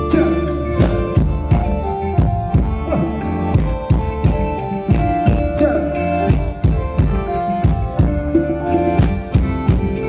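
A live band playing Isan-style dance music for ramwong dancing, with a steady drum beat under sustained melody notes.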